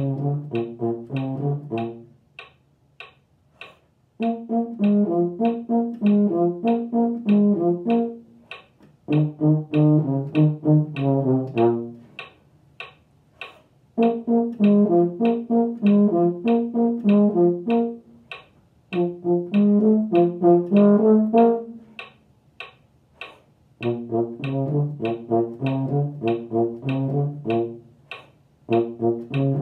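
Euphonium-type valved brass horn playing a low brass band part, in phrases of two to four seconds with short rests between. A metronome clicks steadily about three times a second through the playing and the rests.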